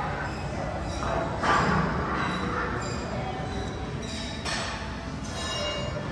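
A woman breathing hard while doing dumbbell goblet squats: short, forceful breaths a second or two apart.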